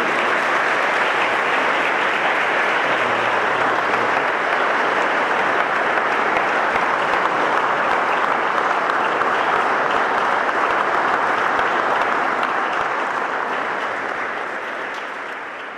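A church congregation applauding: steady, dense clapping that fades away over the last few seconds.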